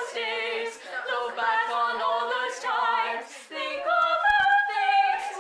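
Two girls singing together a cappella, with no instruments, holding longer notes in the last second or so.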